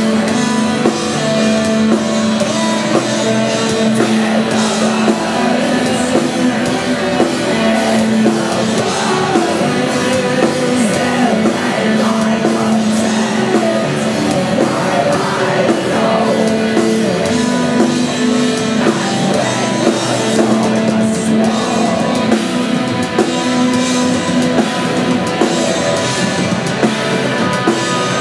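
Black metal band playing live: guitars, drum kit and vocals, loud and unbroken.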